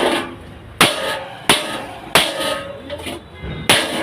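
Blacksmith's hand hammer striking iron on an anvil: five ringing blows at an even pace, with a longer pause before the last.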